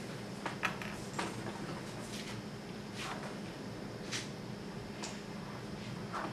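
Scattered soft clicks, snips and rustles of paper and craft supplies being cut and handled, about one every half-second to second, over a steady low room hum.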